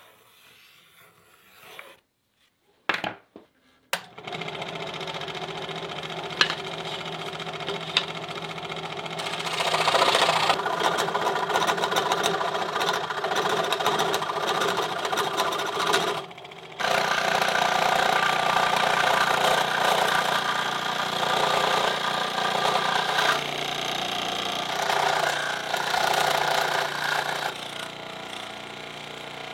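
Power saw cutting a ring out of a thin pine board: after a few clicks it starts about four seconds in and runs steadily, with a short break about halfway through.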